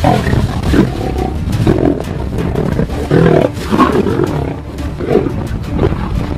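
Lions growling in a series of short, loud bursts, one after another.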